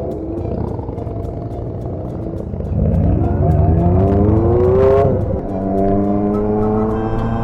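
Motorcycle engine under way, running steadily, then revving up through a gear from about three seconds in; the revs drop sharply at an upshift about two seconds later and it pulls on steadily in the next gear.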